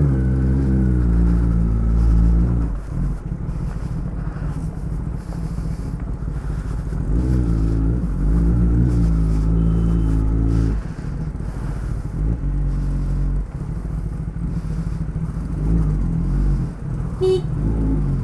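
Kawasaki Ninja ZX-10R's inline-four engine running as the motorcycle rides off, its pitch rising several times as the throttle opens and dropping back between gear changes.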